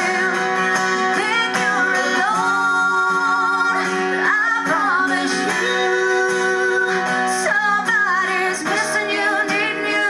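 A woman singing with long held notes over strummed acoustic guitar.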